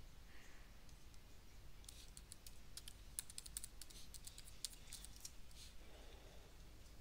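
Faint typing on a computer keyboard: a quick run of keystrokes starting about two seconds in and lasting some four seconds.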